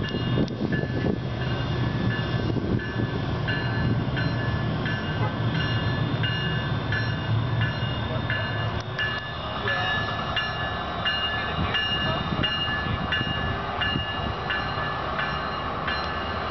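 Amtrak Siemens SC44 Charger diesel locomotive (Cummins QSK95 engine) pulling a passenger train out of the station with a steady low rumble. A bell rings about twice a second throughout, and no horn sounds.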